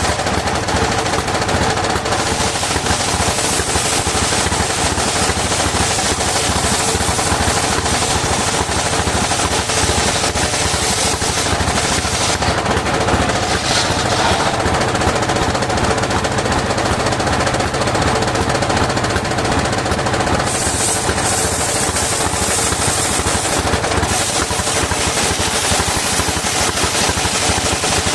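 Engine-driven circular sawmill running steadily, the engine firing in a rapid, continuous chug under the saw's steady whine. The engine is one that is losing power.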